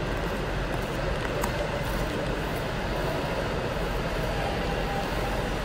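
Steady background noise of an indoor ice rink, an even hum and hiss with no distinct events, with a faint click about a second and a half in.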